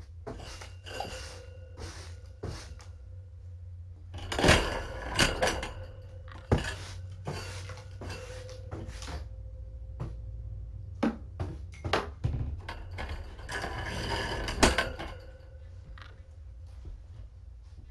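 Irregular knocks, clatter and scraping of things being handled and set down, with a few sharp, louder knocks about four and a half, six and a half and fourteen and a half seconds in, over a low steady hum.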